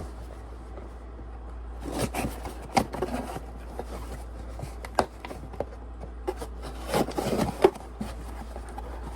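Packaging being opened and handled: scattered scrapes, rustles and clicks, busiest about two seconds in and again near the end, over a low steady hum.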